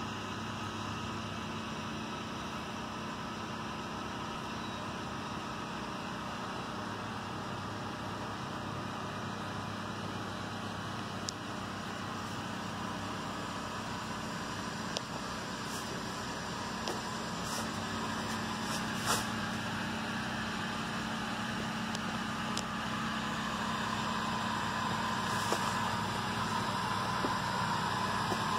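Pressure-washing rig's engine running at a steady speed, a continuous drone, with a few faint clicks in the second half.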